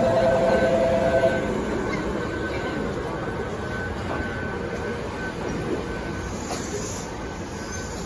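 Ohmi Railway 800-series electric train rolling slowly along the platform, a steady rumbling run that slowly fades. A two-note electronic warning tone cuts off about a second in.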